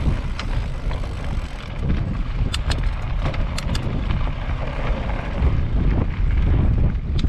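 Mountain bike ridden over rough trail, wind buffeting the microphone in a gusty low rumble. A run of sharp clicks and rattles comes a little over halfway in, and another click comes near the end.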